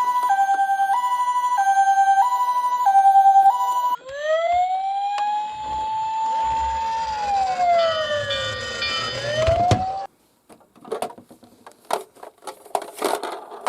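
Electronic toy sirens: a two-tone hi-lo siren stepping between two pitches about every half second, switching about four seconds in to a wail siren that rises, holds, falls and rises again over a low rumble. It cuts off suddenly about ten seconds in, followed by a few light clicks and knocks.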